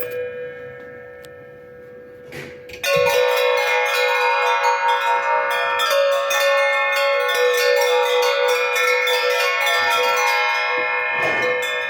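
Metal bell ringing. A ring fades away over the first couple of seconds, then about three seconds in the bell is struck rapidly and repeatedly, its ringing tones piling up over one another.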